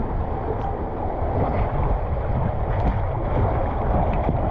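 Steady rushing of water and a rider sliding down an open water slide, heard close on the action camera, with wind buffeting the microphone and a few small splashes.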